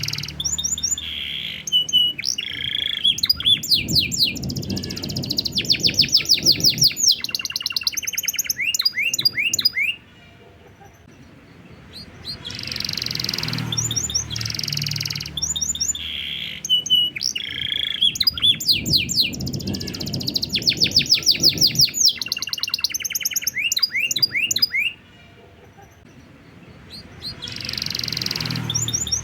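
Domestic canary singing a long, varied song of rapid trills and chirps. It breaks off briefly about ten seconds in and again near twenty-five seconds. The same stretch of song repeats, as in a looped master recording.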